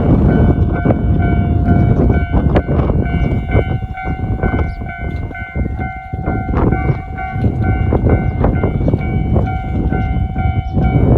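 Tarumi Railway diesel railcar at a level crossing, its wheels clicking irregularly over the rails, while the crossing's warning bell keeps ringing with a steady tone. Heavy wind buffets the microphone.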